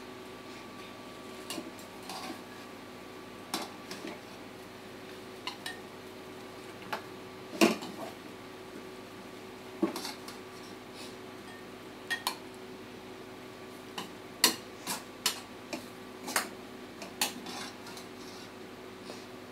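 Metal slotted spoon clinking, knocking and scraping against a black kadai as bread upma is served out of it, in irregular taps. The loudest knocks come about eight seconds in and again around fourteen seconds, over a steady faint hum.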